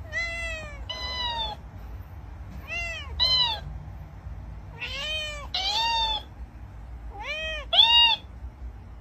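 A cat meowing four times, each meow echoed straight back at a higher pitch by a plush dancing-cactus mimic toy, so the calls come in pairs: a meow, then its squeakier copy.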